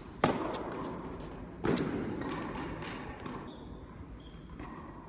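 Tennis ball struck by rackets: a sharp pop about a quarter second in, the loudest sound, and another about a second and a half later, each echoing in a large indoor hall, with fainter ball clicks between.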